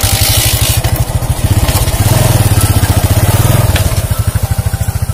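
Small motorcycle engine running as the bike rides off, its exhaust pulsing rapidly and evenly. It grows louder about two seconds in and eases slightly near the end.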